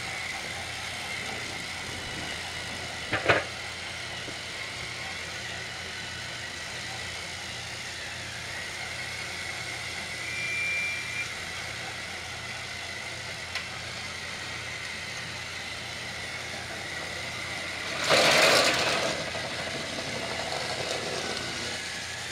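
Small battery-powered electric motors of Trackmaster toy trains whirring steadily as the engines pull their trucks along plastic track. A sharp click comes about three seconds in, and a louder rattling clatter comes near the end.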